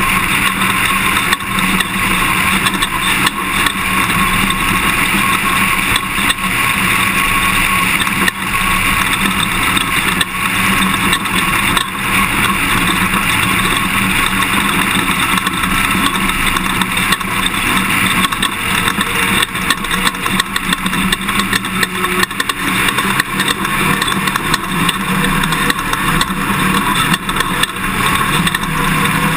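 Toyota Tundra pickup truck driving on a dirt prerun course: a steady engine and road drone with frequent small knocks and rattles from the rough ground.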